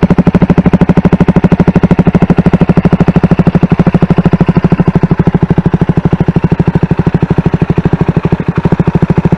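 2022 CFMoto 300SS single-cylinder engine running at a steady idle, its exhaust giving a loud, even train of pulses at about thirteen a second.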